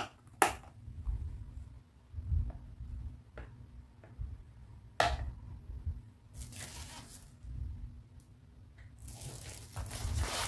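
Hard plastic toy pieces, a clear plastic case and a pink plastic toy handbag, handled and set down on a tabletop: a few sharp clicks and knocks, with scraping and rustling of plastic in between and near the end.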